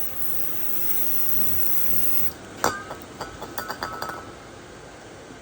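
A hiss lasting about two seconds, then a sharp metallic clink and a quick run of lighter ringing clinks, as of small metal tools or parts being handled.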